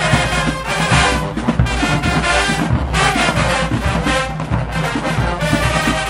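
Marching band music: brass horns playing over drum strikes.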